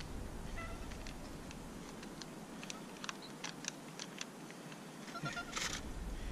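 Cat meowing twice, a short call about half a second in and a stronger one near the end, with scattered light clicks in between.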